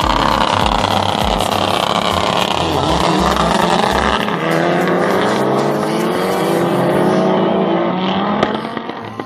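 Race car engines revving hard and accelerating away, the engine note climbing in pitch several times as the cars go up through the gears. The sound fades as the cars pull off down the track near the end.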